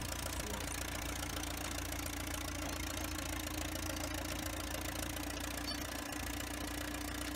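Vintage Oliver crawler tractor's engine running steadily as the crawler is driven along, with a continuous low rumble and a steady hum.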